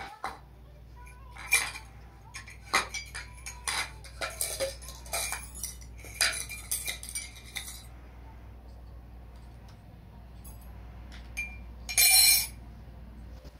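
A metal spoon clinking, tapping and scraping against a steel tumbler and a bowl in a rapid, irregular run of clinks, then a louder half-second clatter near the end.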